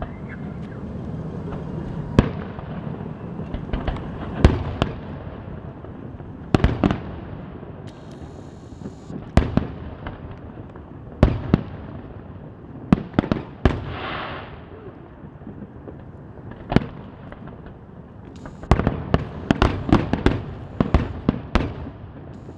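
Aerial firework shells bursting, with sharp bangs every second or two and a short hiss about two-thirds of the way through. Near the end comes a rapid string of bangs, one after another.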